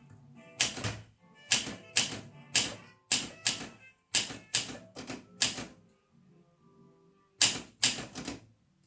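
Olympia SM 2 manual typewriter being typed on, its keys clacking in an irregular run. There are about a dozen strokes, a pause of about a second and a half, then a quick run of several more.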